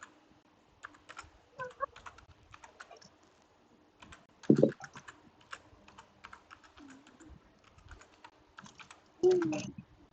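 Computer keyboard typing: irregular quick key clicks, as a search is typed in. Two louder short sounds break in, about four and a half and nine seconds in.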